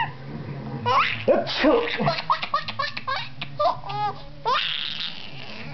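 Baby laughing: a rising squeal about a second in, then a rapid run of short, high-pitched giggles, ending in a breathy burst about four and a half seconds in.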